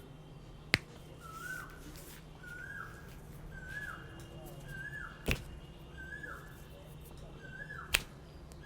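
Three sharp snaps a few seconds apart, over a short chirp that repeats about once a second and a steady low hum.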